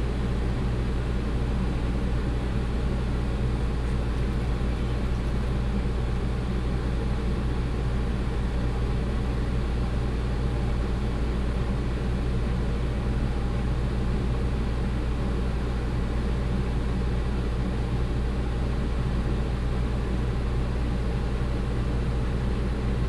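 Steady low machine hum with an even rushing, airy noise that holds unchanged throughout.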